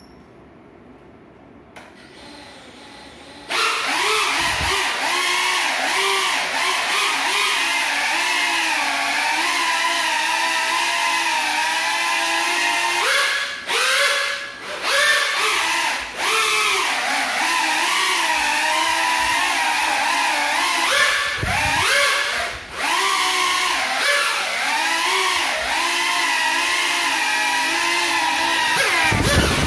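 Small FPV quadcopter's electric motors spinning its broken propellers, starting a few seconds in: a whine that wavers up and down in pitch with the throttle and drops out briefly a few times in the middle.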